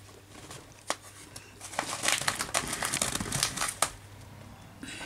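Handling noise: rustling and crinkling with a few light clicks, densest in the middle couple of seconds, over a faint low steady hum.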